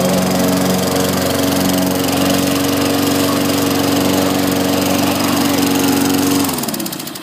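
Self-propelled walk-behind lawn mower's small engine running steadily, then shutting off near the end, its pitch falling as it winds down.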